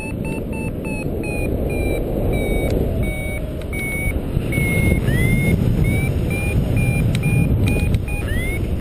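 Paragliding variometer beeping in a quick, continuous run of short tones that step up and down in pitch, its usual signal that the glider is climbing in lift. Wind rushes steadily over the microphone, a little louder in the second half.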